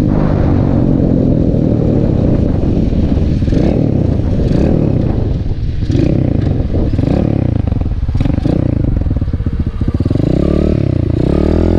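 Coolster QG-214 125cc pit bike's single-cylinder four-stroke engine running under way, its pitch rising and falling several times as the throttle is opened and closed.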